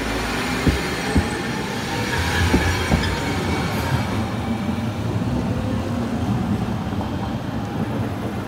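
A Sapporo City Tram 8510-series car with a Mitsubishi IGBT VVVF inverter pulling away, its motor and inverter whine rising in pitch as it speeds up. A few sharp clacks from the wheels on the rails come in the first three seconds.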